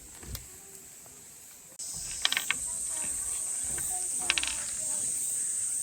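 A steady, high-pitched insect chorus starts abruptly about two seconds in and carries on. A few quick clusters of short clicks sound over it twice.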